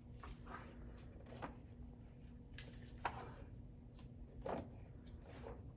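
Soft paper rustles and light taps of a picture book's pages being turned and handled, three small sounds spread over a few seconds, over a faint steady hum.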